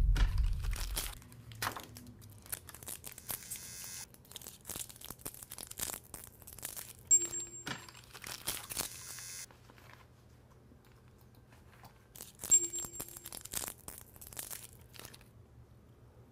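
Sweet wrappers crinkling and tearing in short irregular rustles, with a couple of sharper clicks.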